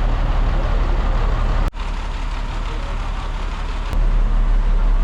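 Large engine running with a steady, loud low rumble. The sound changes abruptly twice, about two and four seconds in.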